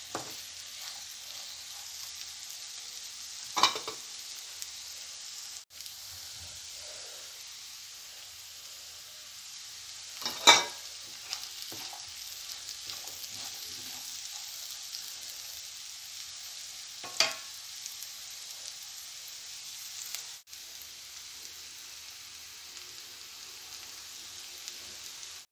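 Diced carrots and green peas sizzling steadily as they stir-fry in a nonstick frying pan, turned with a wooden spatula. Three sharp knocks of the spatula against the pan, about seven seconds apart, the middle one loudest.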